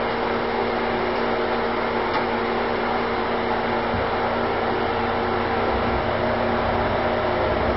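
Steady humming whir of an articulated dual-mode guided trolleybus standing at an underground platform with its electric equipment running, a few held tones over an even hiss. A soft low knock about four seconds in.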